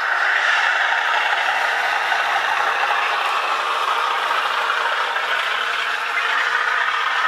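OO gauge model train running along the track: a steady mechanical whir and clatter of the small motor and wheels on the rails.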